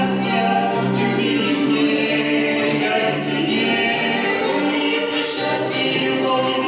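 A vocal ensemble singing a song together in chorus, several voices holding notes that change pitch every second or so.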